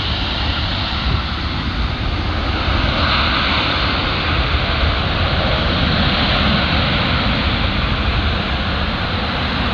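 Steady rushing noise of a jet airliner's engines as the Boeing 757-200 rolls along the runway after landing, mixed with a low wind rumble on the microphone.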